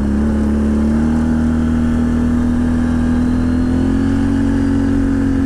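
Can-Am Outlander XMR 1000 ATV's V-twin engine running at a steady cruise, its note rising slightly about four seconds in.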